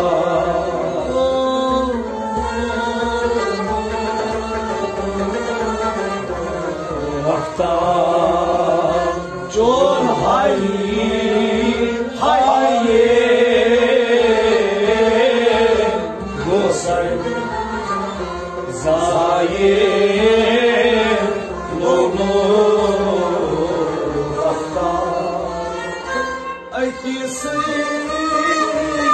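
A man sings a Kashmiri Sufi song in long, wavering, ornamented phrases. A harmonium accompanies him, with a rabab alongside.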